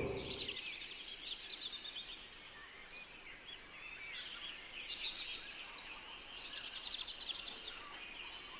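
Small birds chirping and twittering faintly in the background, with quick rapid trills near the middle and again later on. A short knock comes at the very start.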